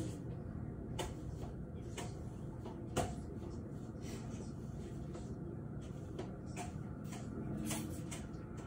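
Steady low background rumble with a handful of faint sharp clicks or taps, the loudest about three seconds in.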